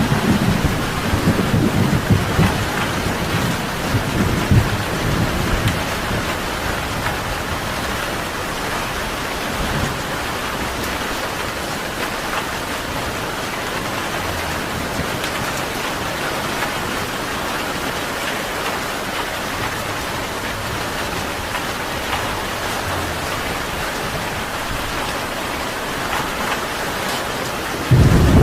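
Steady rain falling as an even hiss, with low thunder rumbling under it for the first few seconds and dying away. A fresh rumble comes in suddenly near the end.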